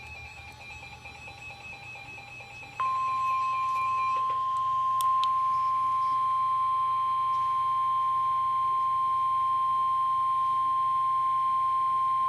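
Emergency Alert System warning tone on a weather radio broadcast: a single loud, steady, high beep that starts about three seconds in and holds unbroken. Before it, a quieter rapid beeping alternates between two pitches.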